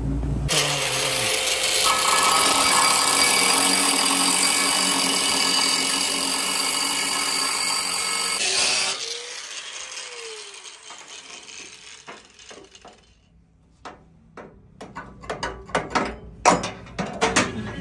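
Handheld angle grinder with a cutting disc slicing through a tractor's sheet-steel side panel, a loud steady grinding whine. It stops about eight and a half seconds in and the disc winds down, followed by scattered light metal taps and clicks.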